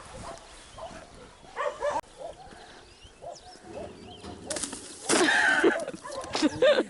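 A dog barking and whining in several short calls, the loudest about five seconds in.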